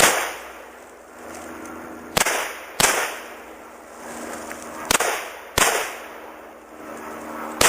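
Semi-automatic SKS rifle in 7.62×39 mm, fitted with a muzzle compensator, firing six shots with a short echo after each. One shot comes at the start, then two quick pairs about two-thirds of a second apart with about two seconds between pairs, then a last shot near the end.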